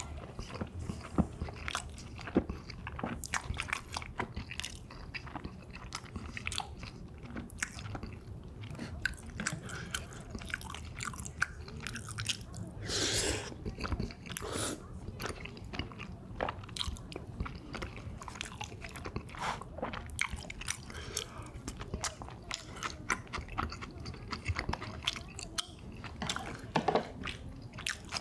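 Close-miked mukbang eating: steady chewing and biting with crunches from spicy pork cartilage, and a longer breathy sound about 13 seconds in.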